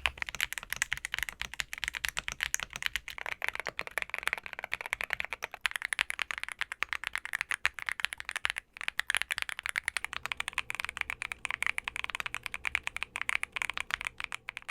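Fast continuous typing on a Monsgeek M1 V3 75% mechanical keyboard fitted with Akko Creamy Purple Pro switches, a steady stream of keystroke clicks with a brief pause about two thirds of the way through.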